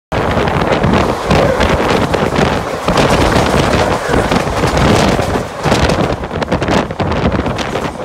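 Wind buffeting the microphone at the open door of a fast-running express train, with the wheels' rolling clatter on the rails. A suburban local train rushes past close alongside around the middle.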